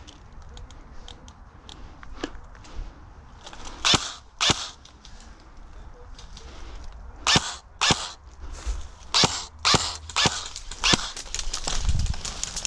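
Airsoft rifle firing single shots, each a sharp snap: two in quick succession about four seconds in, then a steady string of about two shots a second from about seven seconds on.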